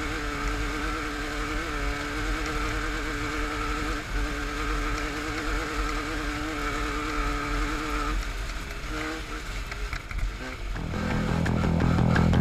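Off-road race vehicle engine running at steady high revs, which dip about eight seconds in. Near the end, loud rock music with guitar comes in.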